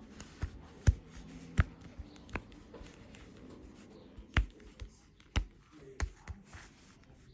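A ball fidget spinner being spun and handled: a faint steady whirr in the first few seconds, with sharp clicks and taps at irregular intervals.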